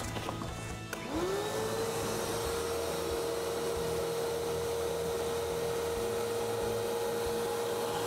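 Vacuum switched on about a second in: its motor whine rises in pitch, then runs steadily as it sucks air out through a hose from the plastic preservation bag around a turbofan engine, pulling the bag snug against it.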